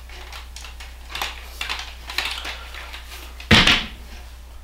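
Tripod being handled: a few light clicks and rattles, then a loud double clack about three and a half seconds in.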